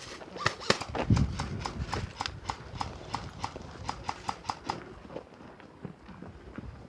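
Brisk footsteps, about three or four a second, stopping about five seconds in, with a louder thump about a second in.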